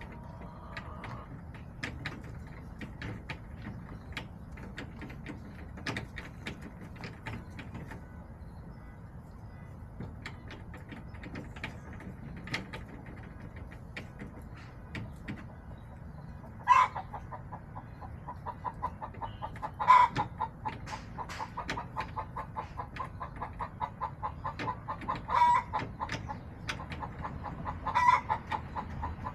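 Backyard hens clucking. Just past halfway one breaks into a fast, steady run of clucks, with a loud squawk every few seconds.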